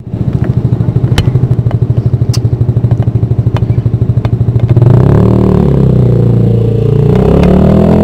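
Motorcycle engine running loud with a fast, throbbing beat and scattered clicks. About five seconds in it revs, its pitch rising and falling.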